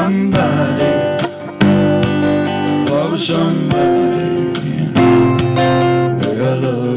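Acoustic guitar played live, strumming and picking an instrumental passage with no singing.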